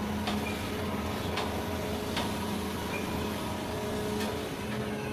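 Scrap metal baler running with a steady mechanical hum, with a few faint sharp clicks or knocks spread through it.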